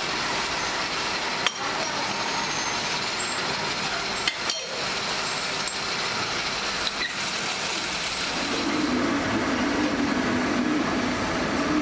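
A few sharp metal clinks and knocks as the lathe's chuck is loosened with a chuck key and the machined bolt blank is handled, over a steady machine noise from the workshop; a low drone comes in near the end.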